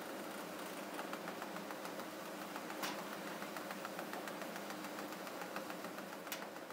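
MICROPLEX F36C colour continuous-form laser printer running, feeding printed fanfold label paper out into its stacker: a steady machine hum with fast fine ticking, and a sharp click about three seconds in and another near the end.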